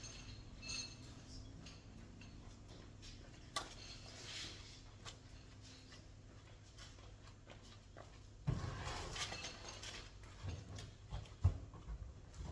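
Small metal hardware such as nuts, bolts or washers clinking and rattling as it is handled. About eight and a half seconds in there is a louder stretch of rustling and handling noise, followed by a few knocks.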